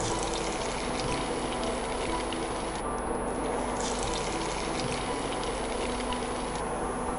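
Dal-paste gujiyas deep-frying in hot oil: a steady sizzle with fine crackling. The crackle thins out briefly about three seconds in, then picks up again as another piece goes into the oil.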